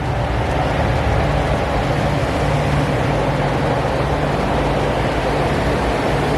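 A machine running steadily and loudly: an even hiss over a low, constant hum, with no change in speed.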